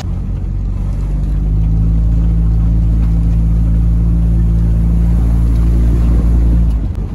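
Steady low drone of a car's engine and drivetrain at an even speed, heard from inside the car. It stops abruptly shortly before the end.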